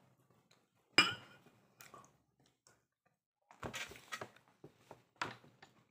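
Ceramic tableware handled on a table: one sharp ringing clink about a second in, a short scraping noise a little past halfway, and a lighter knock near the end.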